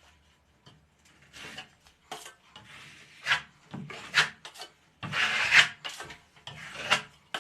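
Repeated rasping strokes of a hand tool worked over a ceiling patch, about six strokes of uneven length with short pauses between them.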